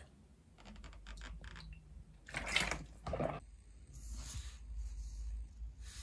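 Liquid being poured or sloshed in a container, with a few light clicks and knocks as the container is handled.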